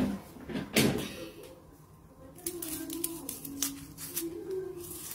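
A loud knock of something set down on a cutting board just under a second in. From about halfway through comes a run of quick, irregular knife taps on the board as a red onion is cut.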